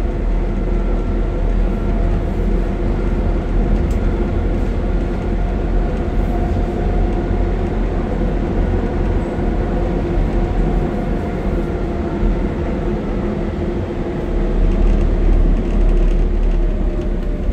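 Docklands Light Railway train running at speed, heard from inside the front of the car: a steady rumble of wheels on rail with a few held humming tones, growing a little louder near the end.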